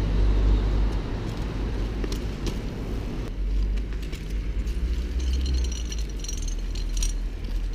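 Wind rumbling on the microphone of a camera carried along on a moving bike, over the rolling hiss of bicycle tyres on pavement. A thin high-pitched squeak comes and goes in the second half.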